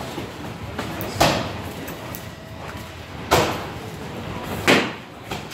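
Three sharp blows from gloved sparring strikes landing: one about a second in, one past three seconds, and one near the end. Each thwack echoes briefly in the large gym hall.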